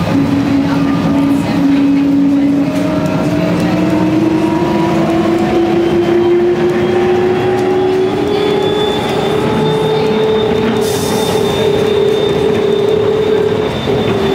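Airport people-mover train car running, a steady rumble under an electric motor whine that slowly rises in pitch over the first half and then holds steady. A brief hiss about eleven seconds in.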